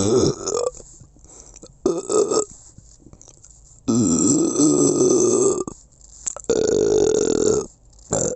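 A person belching again and again: the end of one burp, a short one, a long drawn-out belch of nearly two seconds, another of about a second, and the start of another at the very end.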